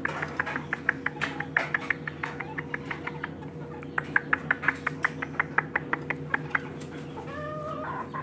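A rapid, even series of sharp clicks, about five a second, over a steady hum. Near the end comes a short call that bends in pitch, a rooster's crow.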